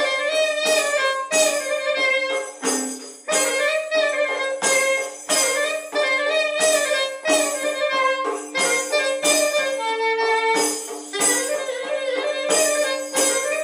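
Clarinet playing a Greek folk melody, accompanied by a jingled frame drum (tambourine, defi) struck in a steady beat of about one and a half strokes a second, its jingles ringing with each stroke.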